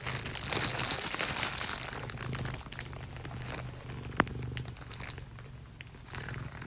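Crinkling and rustling, as of something being crumpled or handled, made of many small crackles, busiest in the first couple of seconds, with one sharp click about four seconds in.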